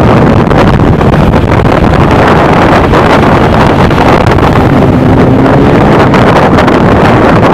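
Superbike engines running in a moving convoy, heard from a bike riding among them, under loud, steady wind buffeting on the microphone.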